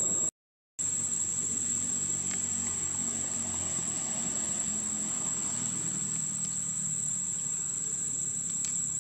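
Steady high-pitched drone of insects, with a low rumble underneath; everything cuts out for about half a second near the start.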